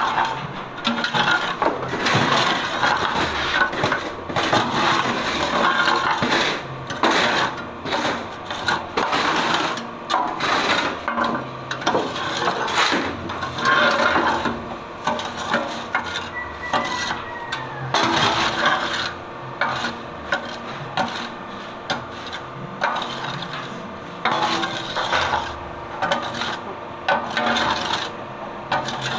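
Hydraulic concrete-block press at work: a steady motor hum under continual scraping, rubbing and knocking, with a short falling whistle-like tone about halfway through.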